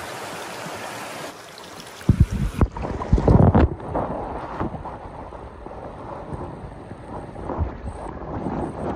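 Rushing creek water as a steady hiss, then from about two seconds in, loud uneven low rumbling and thumping from wind or handling on the phone's microphone as it is moved about close over the net.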